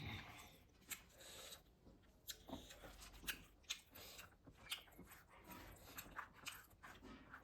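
Faint chewing and mouth sounds of someone eating, with irregular small clicks and smacks every half second or so.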